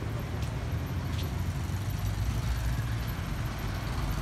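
Steady low rumble of a motor vehicle engine running in nearby street traffic, with a couple of faint ticks in the first second or so.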